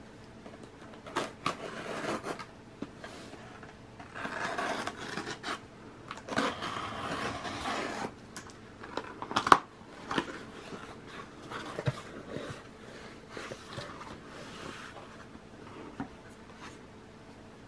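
A small retractable utility knife slitting the packing tape on a cardboard shipping box in several scraping strokes, with a sharp click about halfway through as the loudest sound, then the cardboard flaps being pulled open and rustling.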